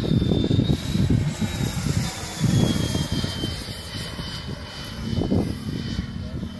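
Aero L-39 Albatros jet trainer flying past, its turbofan giving a high whine that sinks slowly in pitch as it goes by, over an uneven low rumble.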